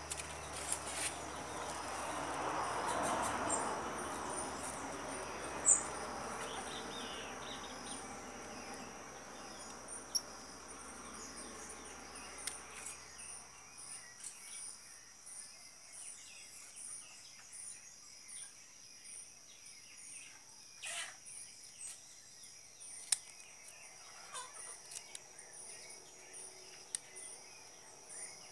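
Insects trilling steadily in the background, a high continuous buzz with a rapid, evenly pulsing chirp above it. A soft rushing noise swells in the first few seconds and fades, and a few sharp clicks stand out, the loudest about six seconds in.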